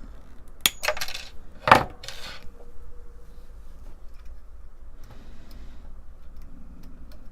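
Pin header being cut to length with cutters: a few sharp clicks and snaps, the loudest about two seconds in followed by a short metallic ring, then light handling noise.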